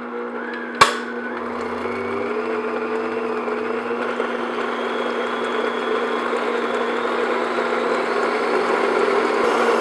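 Stand mixer running with its wire whisk, whipping cold heavy cream in a glass bowl toward soft peaks: a steady motor hum and churn that grows slowly louder. A single sharp click about a second in.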